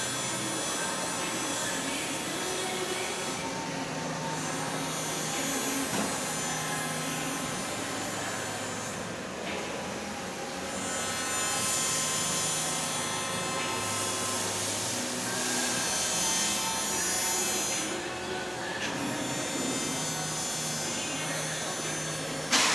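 Adira CNC hydraulic press brake running: a steady hum and whine from its pump and motors, with low tones shifting in steps as the axes move and stretches of hiss. A sudden loud knock comes at the very end.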